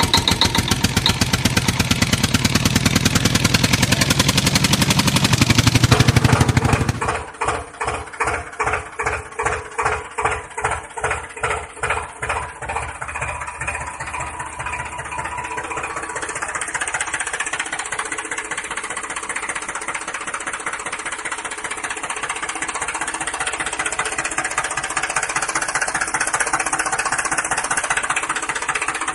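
Tractor engine sound running with a rapid knocking beat. About seven seconds in it changes abruptly to a quieter chugging that swells and dips about once or twice a second, then settles into a steady run.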